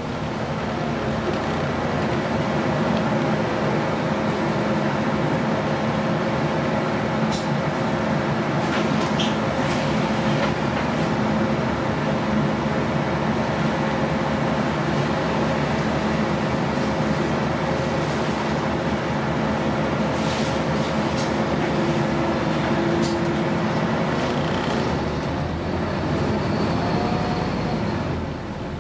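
Scania N230UD double-decker bus's five-cylinder diesel engine and drivetrain running steadily while the bus is under way, heard from the upper deck, with occasional light clicks and rattles.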